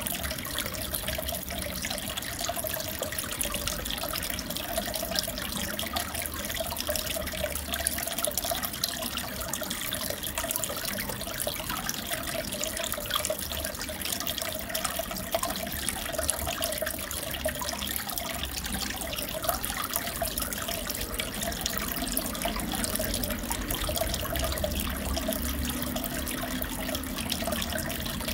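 Aquarium water running and bubbling steadily, with a low hum underneath.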